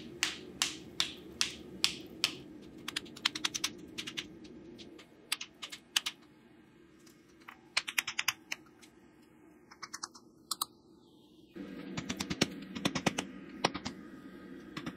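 Hammer blows on a hot mild-steel axe body over an anvil as it is folded over to form the eye. The blows come about two to three a second at first, then in quick runs. A steady low hum sits under the blows at the start, drops out about five seconds in and comes back near the end.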